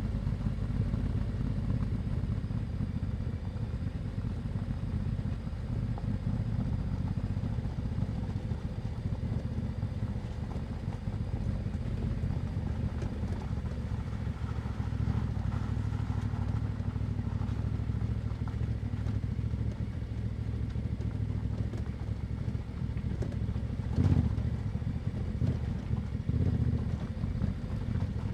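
Yamaha Ténéré 700's parallel-twin engine with an Akrapovic exhaust, running at a fairly steady pace on the move. There is one sharp knock near the end.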